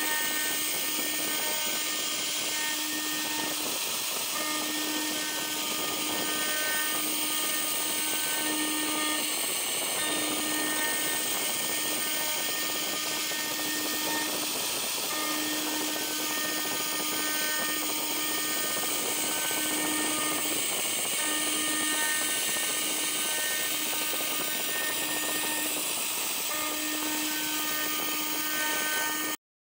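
2.2 kW CNC router spindle running at high speed while a small end mill carves a brass block: a steady hiss of cutting, with a low hum and a few higher tones that break off and resume every second or two as the machine moves.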